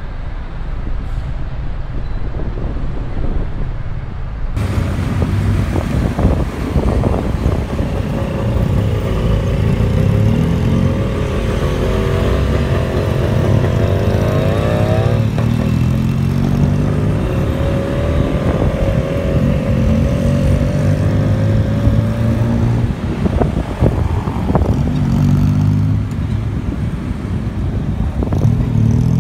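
Motorcycle engine and surrounding traffic heard from the pillion seat of a motorcycle taxi riding in city traffic. The sound changes abruptly about four seconds in, and the engine note rises as the bike speeds up around the middle and again near the end.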